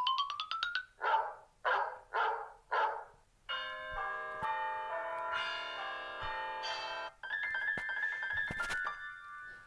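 A run of short phone ringtones played back to back. A rising electronic glide ends about a second in, followed by four quick noisy notes, then sustained keyboard-like chords and another chiming tone that fades near the end.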